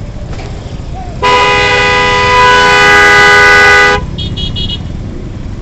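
A vehicle horn sounds one long, very loud steady blast of nearly three seconds, followed by three short high beeps, over the low rumble of engines and road traffic.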